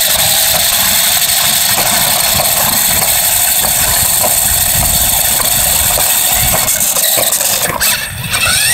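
RC car running, heard through a phone taped to its body: steady motor and drivetrain noise with rumble and rattle from rolling over concrete. Near the end the noise dips and there are a few knocks as the car runs onto grass.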